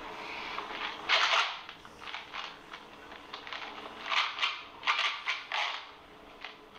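Loud open-mouthed gum chewing: wet smacking and clicking mouth sounds in irregular bursts, loudest about a second in and again around four to five and a half seconds in.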